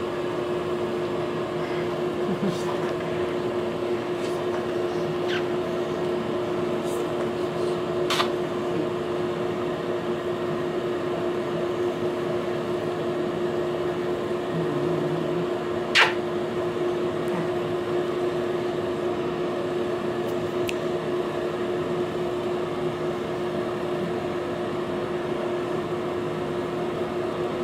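Steady hum of a room air conditioner, with one constant tone running under it. A few short sharp clicks stand out, about eight seconds in and again, louder, about sixteen seconds in.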